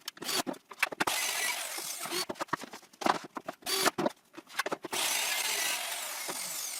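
Plywood boards knocking, clattering and sliding on a circular-saw cutting jig as the boards are swapped, with stretches of hissy rasping noise between the knocks.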